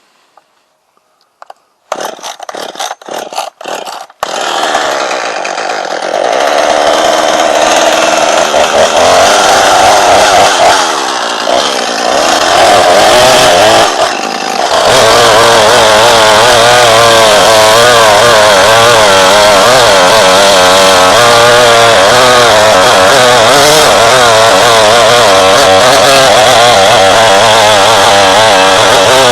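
Chainsaw: several short bursts about two seconds in, then running continuously, and from about halfway on held steady at high revs with a wavering pitch, cutting the felling notch into a large cedar trunk.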